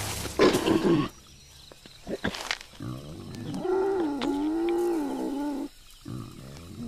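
Animal cries from a Bengal tiger with its jaws on a wild boar's neck and the pinned boar: a loud harsh growl in the first second, then a long call that wavers in pitch from about three seconds in, and a lower, steadier call near the end.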